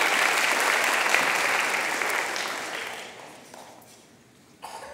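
Audience applauding in a hall, strongest at first and dying away about four seconds in.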